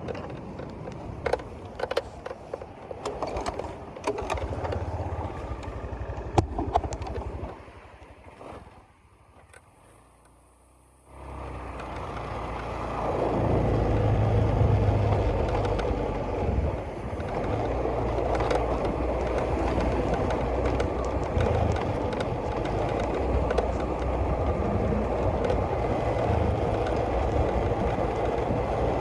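Scattered clicks and knocks over a low rumble, a brief near-silent gap, then an engine running steadily with a rush of wind for the rest of the time.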